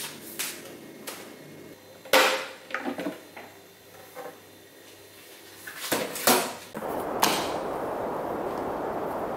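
Knocks and clicks of an electric rice cooker being handled: a loud knock with a short clatter about two seconds in as the lid is opened, then more plastic knocks and a click as the steam-vent cap is pried off the lid. From about two-thirds of the way through, a steady rushing noise sets in and holds.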